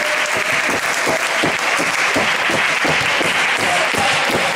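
Basketball spectators applauding: many hands clapping in a dense, steady patter.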